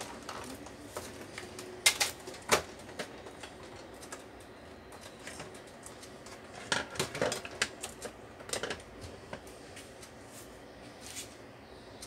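Hands handling things at close range: scattered clicks and knocks, two sharp ones about two seconds in and a quick clatter of clicks around seven seconds, with another knock near nine.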